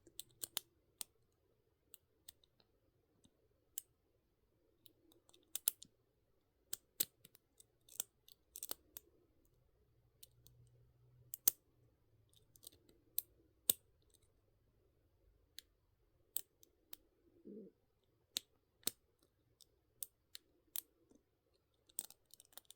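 A lock being picked: small, sharp, irregular clicks and ticks as the metal pick tip lands on and lifts the pin stacks inside the lock one at a time.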